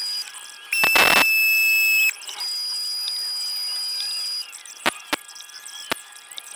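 Small benchtop metal lathe running with a steady high whine while it turns an aluminium moped cylinder head. About a second in, the cutting tool screeches for about a second as it bites into the combustion chamber. The lathe winds down about four and a half seconds in, followed by three sharp clicks.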